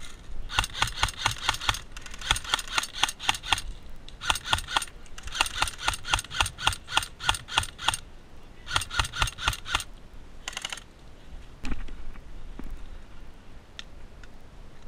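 Airsoft electric gun firing full-auto in about six rapid bursts of sharp clicking shots over the first ten seconds, then a single dull knock.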